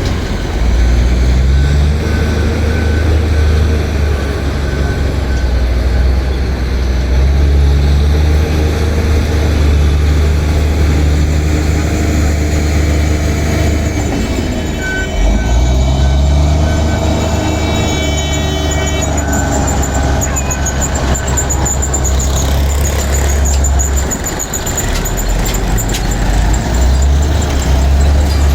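Bulldozer's diesel engine running under changing load, revving up and down several times. A high, evenly repeated beep sounds at times.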